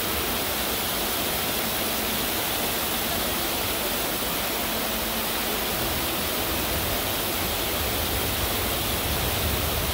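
Fountain water rushing and splashing steadily, a continuous even hiss.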